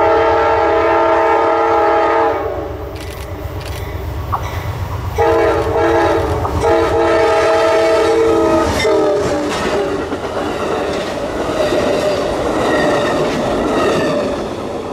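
Amtrak GE P42DC Genesis locomotive sounding its multi-chime air horn for the grade crossing: one long blast, a pause of about three seconds, then two more long blasts run almost together. The train then rushes past with a rumble and clatter of wheels on rail that fades near the end.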